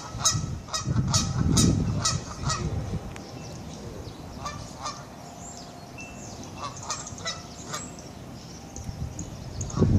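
Short bird calls repeated about three times a second for the first couple of seconds, then scattered single calls, over a low rumble.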